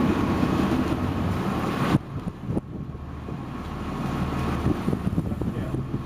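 Fishing boat's engine running steadily under wind buffeting the microphone. The wind noise drops away suddenly about two seconds in.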